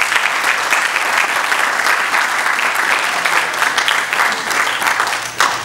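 Audience applauding: dense clapping from many hands that starts abruptly and dies away near the end.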